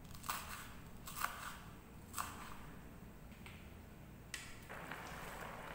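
Kitchen knife slicing chilies on a wooden cutting board: three faint sharp taps of the blade on the board, about a second apart. About four seconds in, a short rustle and then a faint steady hiss.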